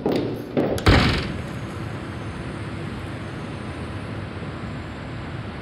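A door slams shut about a second in, after a couple of lighter knocks, then a steady hum of city traffic.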